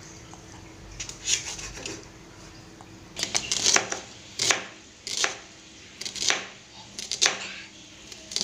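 Large kitchen knife chopping garlic and shallots on a wooden cutting board. The blade strikes the board in separate strokes, a few close together at first, then about once a second.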